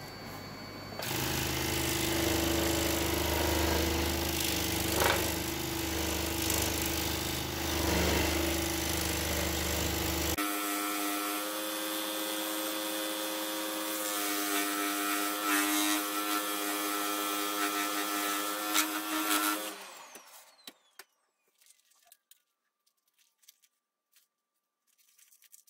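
Pégas 21-inch scroll saw running and cutting through a wooden tree slice. Its sound changes abruptly about ten seconds in. Around twenty seconds in it is switched off and dies away, leaving only faint handling clicks.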